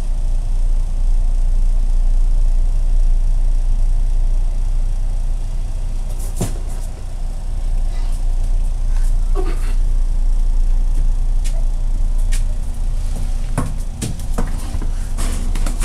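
A steady low rumble, with scattered knocks and thumps from about six seconds in as a Great Dane puppy gets up and paws at a kitten.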